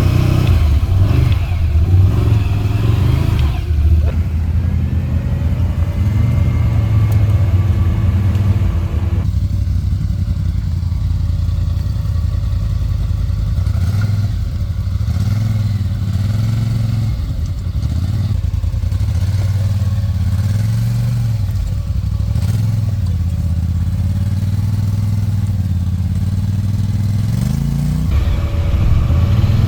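Large-displacement ATV engine running under load, its pitch rising and falling again and again as the throttle is worked, with a sharp rev-up near the end.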